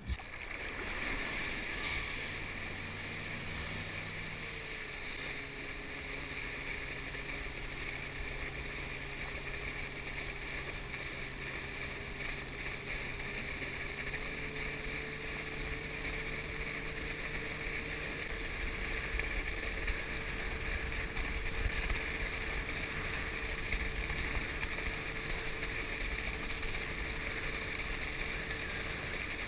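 Tow motorboat's engine running steadily under way, mixed with a constant rush of water and wind. The engine note shifts slightly a few seconds in and again about halfway through.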